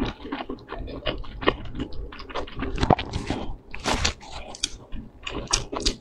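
Close-miked chewing and wet mouth sounds of someone eating dumplings in chili oil: irregular soft clicks and smacks, with a few louder noisy bursts around four and five and a half seconds in.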